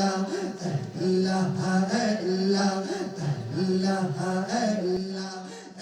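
Group of voices performing Sufi chanting: one repeated melodic phrase sung in unison, long held notes broken by short ornamented turns, fading out near the end.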